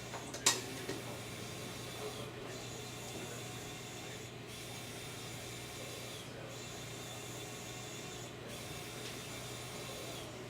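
Steady room noise with a constant low hum, broken by one sharp click about half a second in and a couple of fainter ticks just after.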